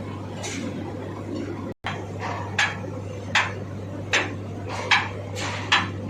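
Hammer striking metal in an even rhythm, five blows about 0.8 s apart starting about two and a half seconds in, over a steady low hum.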